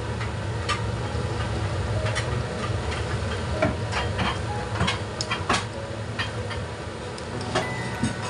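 Chicken pieces cooking in a pot of foaming, bubbling liquid, spitting and popping at irregular intervals over a steady low background.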